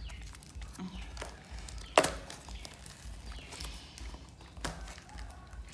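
Scattered small clicks and handling noises, with one sharp knock about two seconds in.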